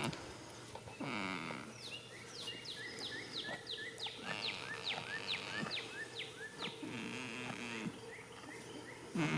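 A goat snoring: a short snore about a second in and a longer, wavering one around seven seconds in. Between them a small bird sings a run of quick, repeated chirps, about three a second.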